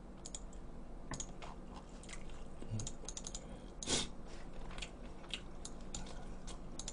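Faint, irregular clicks and taps, with one louder click about four seconds in.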